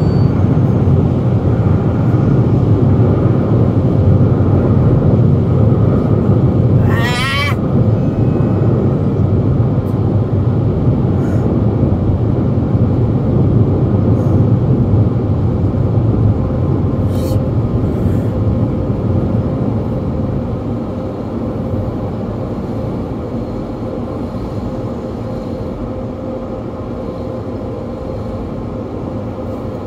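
Automatic car wash machinery heard from inside the car: a loud, steady rushing roar with a low hum, fading over the last ten seconds or so. A brief rising squeal cuts through about seven seconds in.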